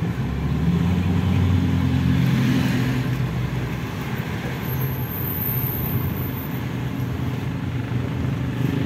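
Hyundai H1 campervan on the move, heard from inside the cabin: a steady low engine drone mixed with tyre and road noise.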